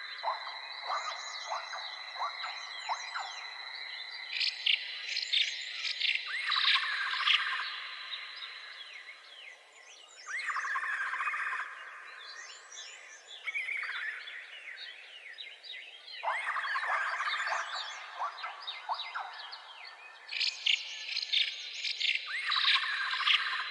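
Birds calling and chirping. A rising call repeats about every three to four seconds, among many short, quick chirps, over a steady high-pitched insect-like drone.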